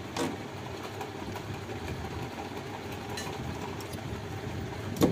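Scissors snipping and handling thin insulated electrical wire, a few faint short clicks, over a steady low background rumble. A sharper knock comes near the end.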